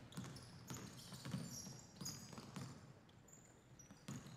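A basketball being dribbled and bouncing on a wooden gym floor, a few irregular thuds, with sneakers squeaking briefly on the boards during play.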